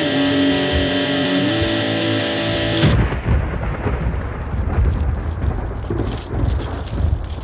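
Guitar-led music that cuts off abruptly about three seconds in, giving way to a storm: rain falling with a low rumble of thunder.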